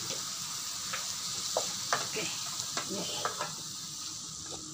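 Stir-fried broccoli and cauliflower sizzling in a nonstick frying pan, with a wooden spatula scraping and knocking against the pan several times.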